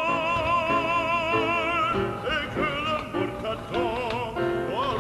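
Background music: a melody whose held note wavers with vibrato in the first two seconds, followed by shorter sustained notes.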